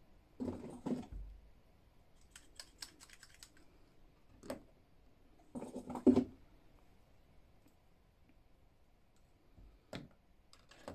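Plastic action figures clicking and clattering as they are picked up, handled and set down on a tiled tabletop, in scattered bursts of small clicks with quiet gaps, the loudest clatter about six seconds in.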